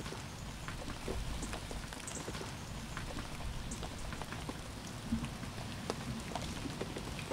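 Rain pattering: a steady hiss with scattered drops ticking at irregular intervals.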